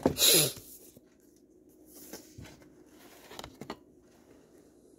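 A loud, brief rustle of packaging as items are handled, lasting about half a second, followed by a few faint knocks and taps from moving things about.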